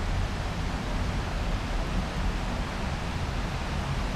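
Steady rushing of a rocky forest river, with a low, uneven rumble on the microphone underneath.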